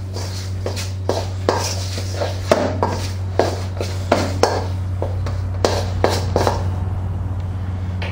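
Metal fork scraping and clinking against a stainless steel mixing bowl while stirring bread dough, in irregular strokes that stop about six and a half seconds in. A steady low hum runs underneath.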